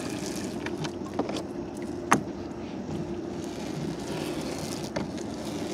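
A motor running steadily, with a few short sharp knocks, the loudest about two seconds in.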